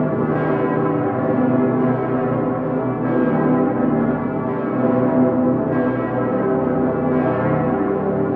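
The full festive peal of Cologne Cathedral's bells, including the great St. Petersglocke ("Dicker Pitter"). Many large bells ring together, with new strikes coming every second or two over a continuous, overlapping hum of sustained tones.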